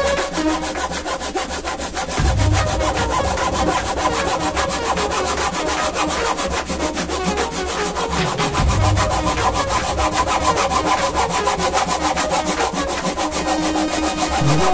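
Wolfcraft Japanese pull saw cutting across a wooden batten by hand, with quick, even back-and-forth strokes of the teeth rasping through the wood.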